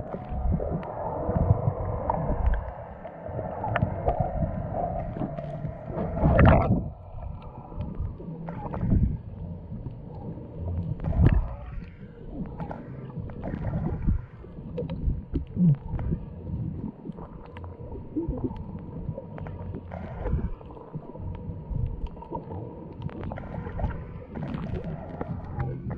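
Water noise recorded underwater through a GoPro's sealed housing: a muffled, irregular low rumble with scattered clicks and a louder surge about six and a half seconds in.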